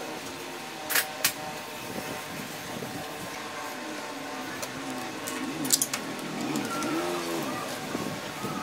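A motor vehicle's engine rising and falling in pitch over a steady background hum, strongest in the second half. Two sharp clicks come about a second in.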